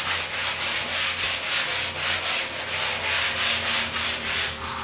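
A small hand brush scrubbing a terrazzo tile floor along the corner where floor meets wall, in quick back-and-forth strokes of bristles rasping on the tile.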